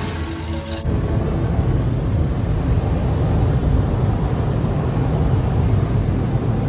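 A short bit of music cuts off about a second in, giving way to automatic car-wash air-dryer blowers running, a steady deep rumble heard muffled from inside the car's cabin.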